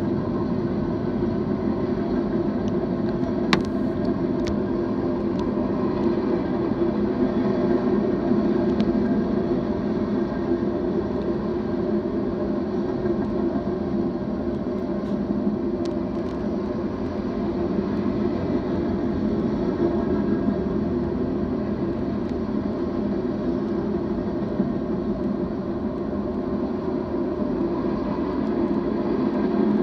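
BNSF manifest freight train passing, a steady, continuous rolling noise with a few brief sharp clicks.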